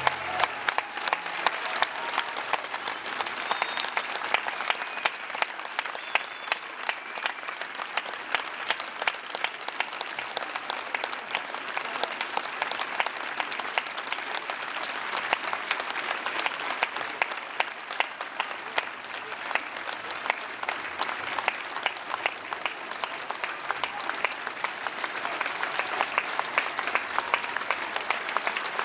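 A large audience applauding steadily, a dense even clapping. The last chord of the orchestra and choir breaks off just as it begins.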